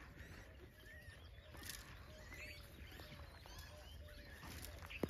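Faint outdoor background with small birds chirping now and then, and one sharp click near the end.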